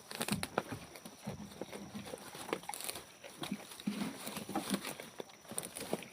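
Goats moving about, their hooves giving scattered irregular taps and knocks with light rustling.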